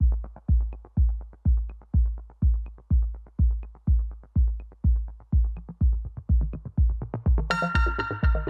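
Electronic background music: a steady deep kick drum about twice a second under fast ticking hi-hats, with a bright synth line coming in near the end.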